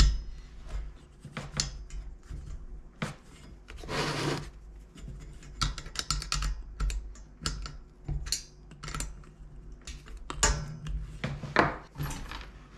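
Hands fitting a hose onto a diesel night heater: irregular small clicks and knocks of the parts being handled, with rubbing, and a half-second scraping rub about four seconds in.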